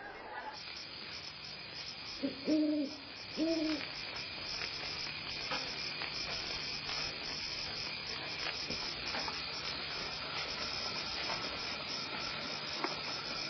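An owl hooting twice, two low arched hoots about two and three and a half seconds in, over a steady chorus of night insects such as crickets.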